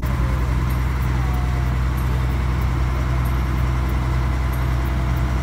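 River ferry's engine running steadily, a deep, even drone heard from on board.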